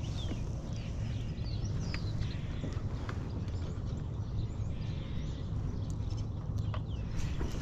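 Small knocks and clicks of water and gear against a kayak hull over a steady low rumble, with a few short, high, falling bird chirps now and then. A sharp knock comes right at the end.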